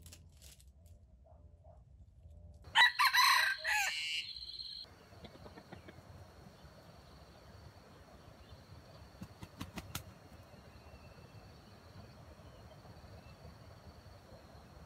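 Red junglefowl rooster crowing once, a single crow of about two seconds starting about three seconds in.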